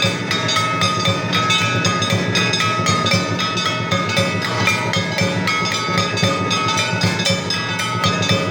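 Sandhya aarti percussion: metal temple bells and hand cymbals clanging in a fast steady rhythm over a pulsing drumbeat, with long ringing metallic tones.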